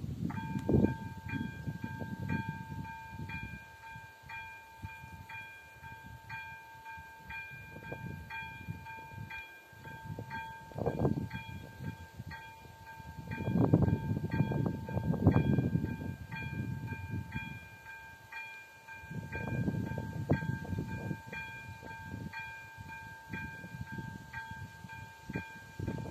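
Czech level crossing's electronic warning bell switching on and ringing: a sustained two-tone ding with a sharp strike repeating about twice a second, signalling that a train is approaching. Low rumbling noise swells and fades underneath.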